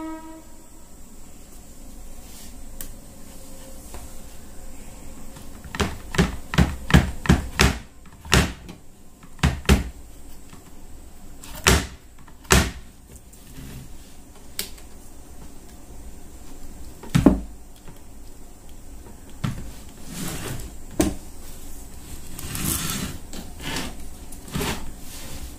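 A run of sharp clicks and knocks from handling an MP3/Bluetooth player module: a USB pen drive pushed into its socket and its push-buttons pressed, over a faint steady hiss. The clicks come in a quick cluster about six to eight seconds in, then singly every second or two, with the loudest knock about seventeen seconds in.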